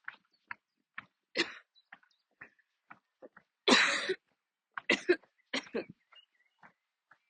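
A woman's coughing attack: a series of short coughs, the loudest and longest about four seconds in, followed by quick coughs in pairs.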